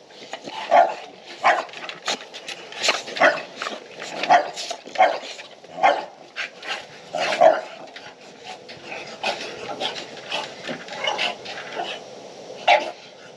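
Bully-breed dogs barking in short, separate barks about once a second. The barks are louder in the first half, fainter and more scattered later, with one louder bark near the end.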